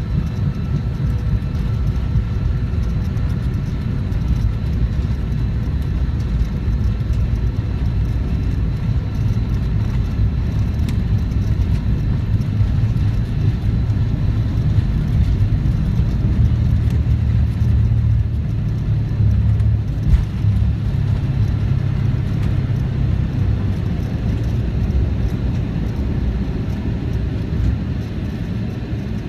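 Cabin noise of a McDonnell Douglas MD-88 on its takeoff roll, heard from a forward seat: the rear-mounted Pratt & Whitney JT8D turbofans at takeoff thrust over a heavy rumble of the wheels on the runway. The rumble grows stronger past the middle and eases near the end as the jet lifts off.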